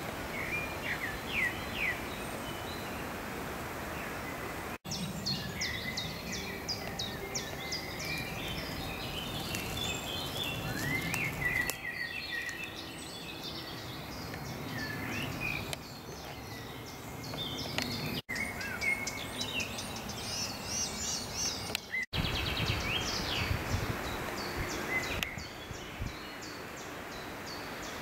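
Several songbirds singing at once, with overlapping high chirps and trills over a low rustle. The sound drops out for an instant three times.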